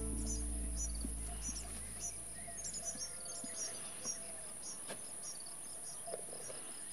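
Rural summer ambience: a steady high-pitched insect drone with short bird chirps repeating every half second or so. A low sustained note from the score fades out in the first couple of seconds.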